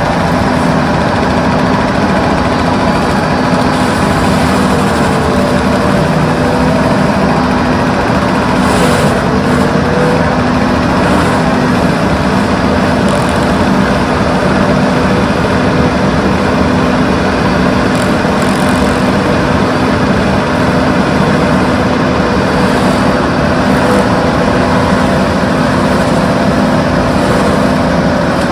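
Excavator diesel engine running steadily with the hydraulic mulcher attachment, a steady drone with several held tones and no pauses.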